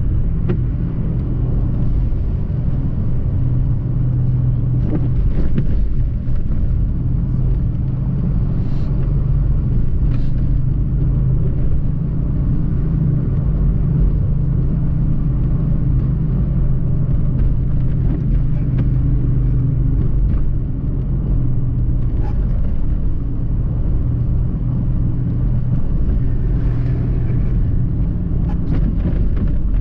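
Car driving on a wet road, heard from inside the cabin: a steady low engine and tyre drone, with a few faint ticks now and then.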